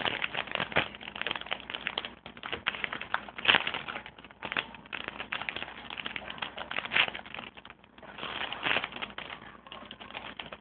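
Foil wrapper of a Pokémon trading-card booster pack crinkling as it is torn open and handled: a dense, irregular crackle of small clicks, with louder bursts now and then.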